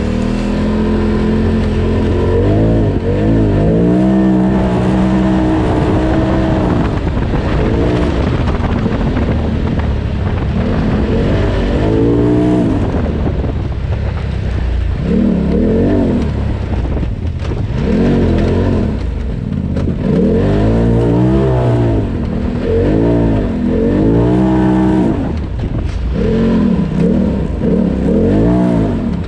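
Polaris RZR Turbo side-by-side's turbocharged engine revving up and dropping off over and over, a rising and falling whine every couple of seconds, as it is driven hard along wooded trails.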